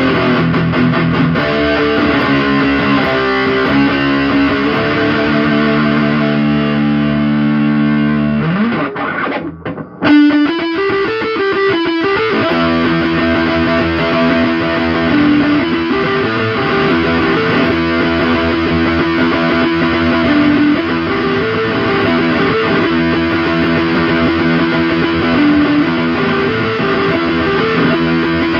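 Electric guitar played through an overdrive and fuzz pedal into a solid-state amp, the Orange Super Crush 100 at first, with heavy distorted riffing. About eight and a half seconds in a note slides up and the sound nearly drops out for about a second. Then the riffing comes back in and repeats a short figure over and over.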